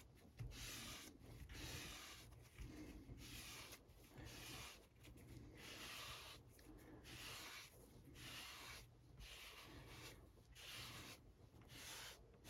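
Cleaning sponge rubbed over a comic book's paper cover in repeated back-and-forth wipes, a faint, rhythmic scrubbing about once a second, lifting away leftover crumbs from a document cleaning pad.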